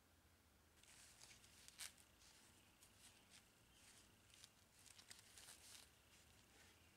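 Faint handling noise: work-gloved hands rustling and lightly clicking as they pick up and hold a long metal hacksaw blade, with a sharper tick about two seconds in.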